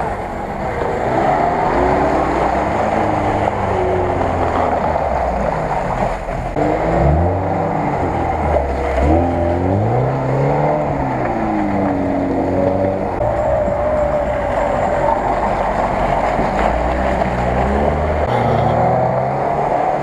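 Lada Niva 4x4 engines revving up and down over and over as the cars churn through deep mud, with mud and water splashing.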